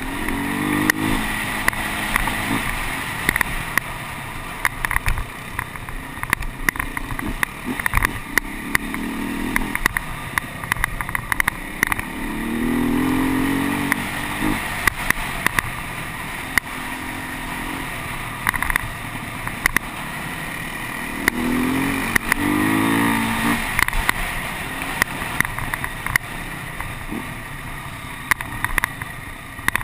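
Beta 250RR two-stroke enduro motorcycle engine under way, revving up several times between steadier running, heard from a helmet camera. Frequent sharp knocks and rattles come from the bike riding over a rough dirt trail.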